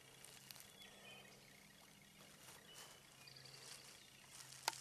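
Near silence, with faint scattered bird chirps and a faint steady low hum. There is one sharp click a little before the end.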